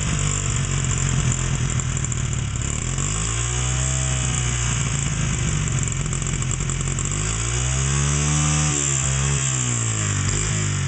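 Honda XR70R dirt bike's small four-stroke single-cylinder engine idling, revved up and back down twice, about four and eight seconds in.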